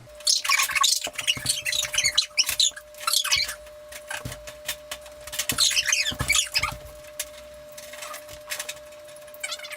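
Sped-up audio of the eating race: high-pitched, chipmunk-like squeaky chatter in bursts, with scattered clicks and knocks and a faint steady tone underneath.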